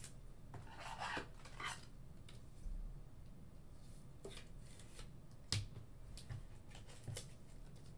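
Baseball trading cards being handled and slid across a tabletop: faint scattered rustles and light clicks, the sharpest about five and a half seconds in.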